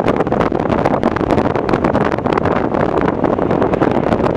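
Steady loud rush of wind buffeting the microphone, mixed with the takeoff roar of a distant Airbus A380's four jet engines, full of short crackles.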